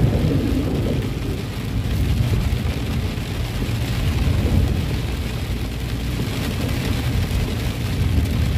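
Car driving through heavy rain on a flooded road, heard from inside the cabin: a steady low rumble from the car and road under the hiss of rain on the car.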